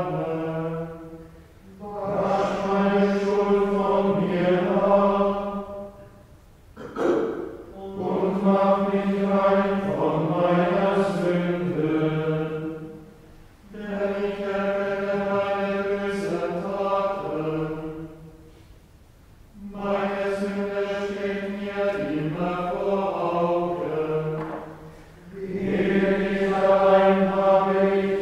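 Men's voices chanting plainchant together, each phrase held mostly on one reciting pitch and closed with a short melodic fall, in phrases of about four seconds with brief pauses between them: the chanted office of Tenebrae on Good Friday.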